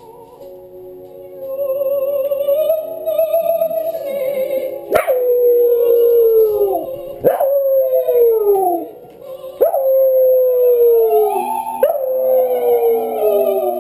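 Scottish terrier howling along to opera music: about a third of the way in the howls begin, four long ones, each starting sharply and sliding down in pitch, over the recorded operatic singing.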